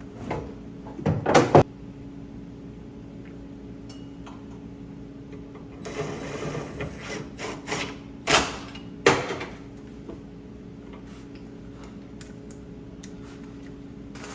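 Irregular knocks, scrapes and clatter of a car trunk lid and its fittings being handled and screwed on, with loud knocks about a second in and twice around the middle, over a steady low hum.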